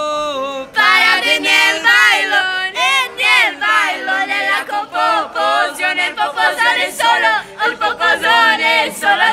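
A group of young voices singing together loudly and close up, a held note at the start giving way to quick sung phrases that slide up and down in pitch.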